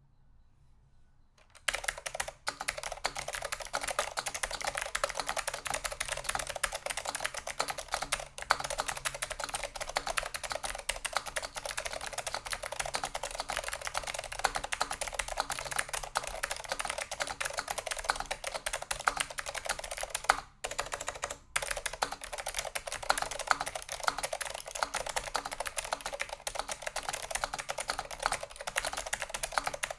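Fast, continuous typing on a Leading Edge DC-2014 keyboard with clicky SKCM blue Alps switches, a steel plate and no dampening foam in a polycarbonate case. It is loud and starts about two seconds in, with two brief pauses a little past the middle.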